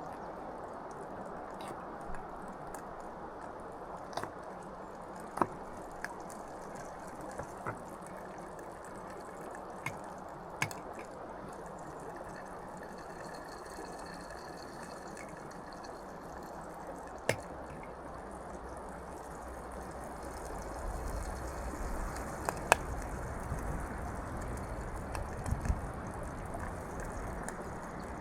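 Beef and vegetables frying in oil in a pan: a steady sizzle with scattered sharp pops and crackles. A low rumble joins in about twenty seconds in.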